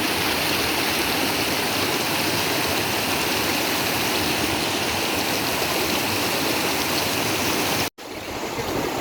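River water rushing steadily. It cuts out abruptly near the end and comes back quieter.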